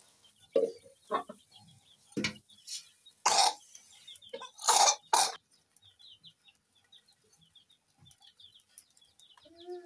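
Several short, loud bursts in the first half, then chicks peeping softly in many short high chirps, and a hen giving a low, drawn-out call near the end.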